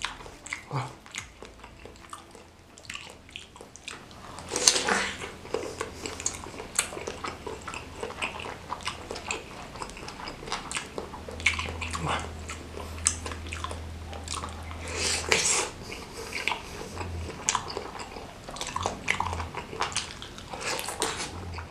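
Close-miked mouth sounds of someone biting and chewing a large meatball (bakso) coated in chili sambal: wet smacking and short crunchy clicks at an irregular pace, with louder bites about five seconds in and again near fifteen seconds.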